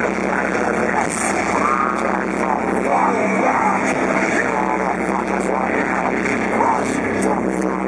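A metalcore band playing live at full volume through a festival PA, with vocals over distorted guitars and drums.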